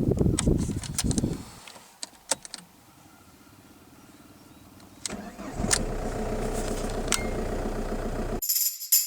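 Ford Focus Mk1 diesel engine running, then dying away about a second and a half in. About five seconds in it starts again and settles into a steady idle, which cuts off abruptly near the end as music with a tambourine comes in.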